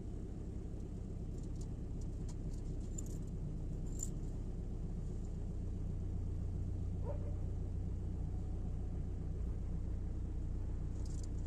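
Ford Mondeo mk4's 1.8 TDCi four-cylinder diesel idling steadily after a cold start, with a few faint ticks in the first four seconds.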